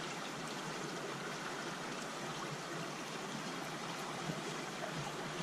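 Steady, even rush of flowing river water below an old dam.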